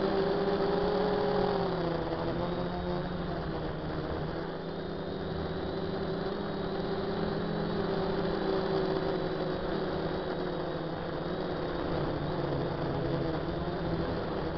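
DJI F450 quadcopter's electric motors and propellers humming in flight, a steady buzzing drone whose pitch dips about two seconds in and then wavers.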